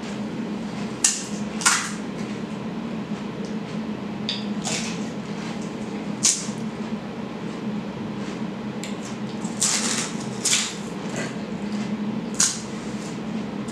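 Golgappas (pani puri) eaten in quick succession: short crunches of the crisp puri shells and slurps of the jaljeera water, a few each several seconds apart, over a steady low hum.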